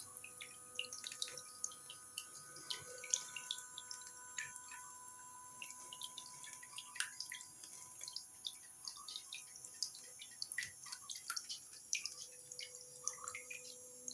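Small tabletop waterfall fountain running: water trickling and falling in many small, irregular drips and splashes.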